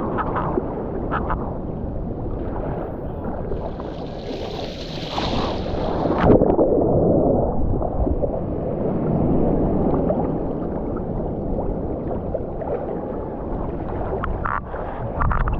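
Seawater sloshing and gurgling against a camera bobbing at the surface in small surf, heard muffled and heavy in the bass. A brief hiss of water rushes past a few seconds in, followed by a sharp splash about six seconds in.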